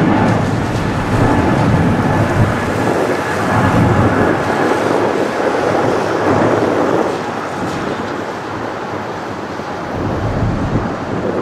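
Boeing 777 twin jet engines at takeoff thrust as the airliner climbs out: a loud, deep, rumbling roar that eases a little past the middle and swells again near the end.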